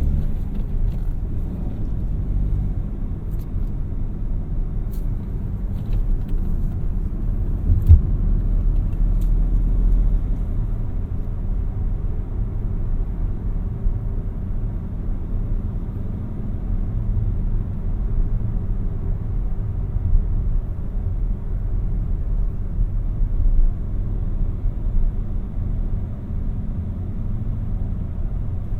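A 2017 Peugeot 3008 with the 1.2-litre PureTech three-cylinder petrol engine, driving along with a steady low rumble of engine and road noise. A single thump about eight seconds in.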